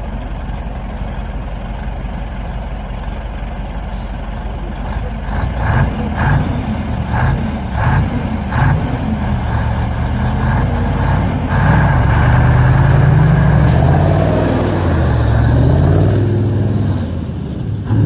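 KAMAZ rally truck's diesel engine idling, then revved in several short blips. From about 11 seconds in it pulls away under full power, its pitch climbing, dropping at a gear change and climbing again before fading as it moves off.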